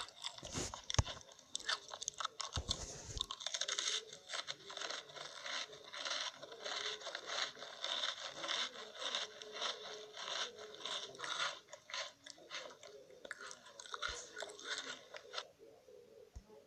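Close-up crunchy chewing and biting: a continuous run of crackling crunches from someone eating a crisp food, ASMR-style.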